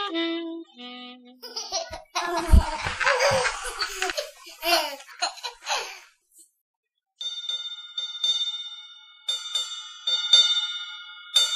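Animated-film soundtrack: the end of a falling run of woodwind-like notes, then about four seconds of busy, squeaky commotion with laughter-like voices and one heavy thump. After a second of silence come bell-like chimes struck about once a second, each left ringing.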